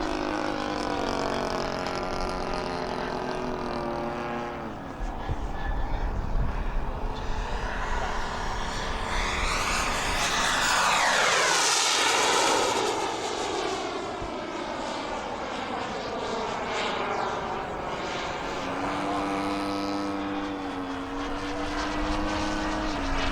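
Radio-controlled propeller model airplane flying, its engine note rising and falling with the throttle, passing close and loudest about halfway through with a falling pitch as it goes by.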